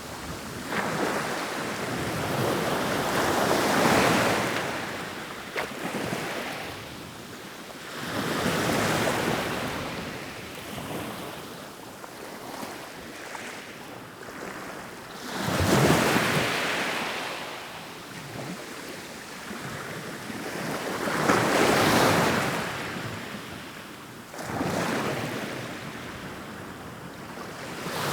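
Ocean waves rolling in, each wave a rushing surge that swells and fades, coming about every five to six seconds.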